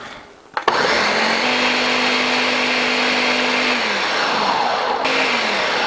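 Countertop blender switched on with a click about a second in, its motor running steadily as it chops soaked, fermented cassava pieces toward a paste. Its pitch sags near the four-second mark, it breaks off briefly about five seconds in, then runs again.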